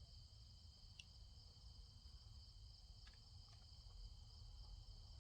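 Faint steady chorus of crickets, an even high trill holding at two pitches, with a couple of faint ticks about a second and three seconds in.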